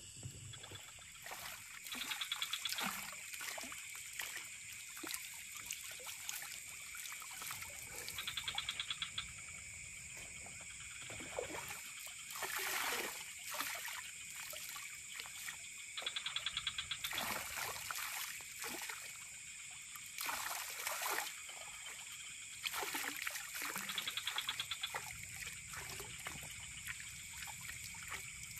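A frog calling: short rattling trains of rapid pulses, four times, about every seven to eight seconds, over a steady high insect drone. Water trickles and splashes now and then.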